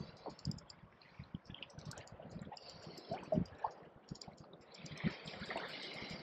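Spinning reel being cranked while a hooked fish is reeled in from a kayak: a run of light clicks from the reel, over the wash and lapping of sea water.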